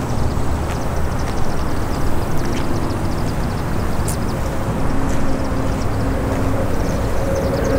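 Steady low rumble of distant vehicle traffic. An engine hum comes up about five seconds in and holds, with faint high chirps above.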